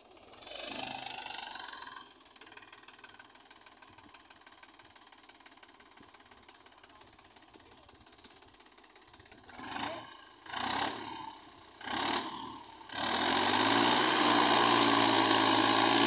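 Mahindra 275 DI tractor's diesel engine, hitched to a trolley in deep sand, ticking over quietly. It speeds up briefly under a second in and three times in quick succession later, then runs loud and steady for about the last three seconds.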